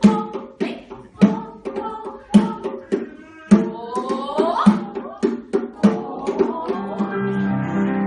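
Live music: a drum struck in a steady beat, about one and a half strokes a second, over held pitched notes, with a sliding tone rising around the middle. The drumming stops about six seconds in and the held notes carry on.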